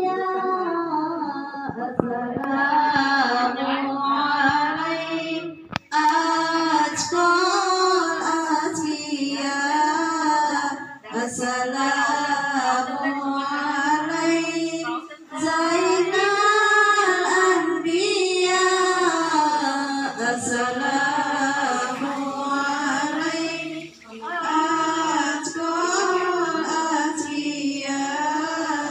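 A single female voice singing a long melodic chant of drawn-out, wavering ornamented notes, pausing briefly for breath several times.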